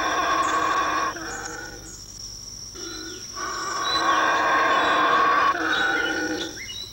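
Male black howler monkey roaring: two long, deep roars, the first breaking off about a second in and the second starting about three and a half seconds in and lasting about three seconds. A steady high-pitched insect drone runs behind.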